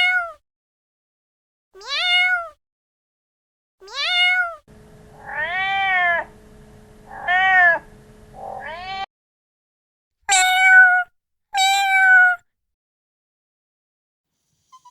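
A cat meowing repeatedly, eight meows in all: three short ones about two seconds apart, then three rising-and-falling ones over a steady low hum, then two longer meows.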